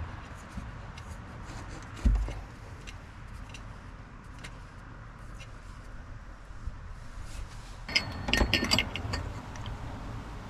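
A dull thump about two seconds in, scattered light clicks, then a burst of metallic clinking and jingling near the end, like tools or small metal parts being handled, over a steady low hum.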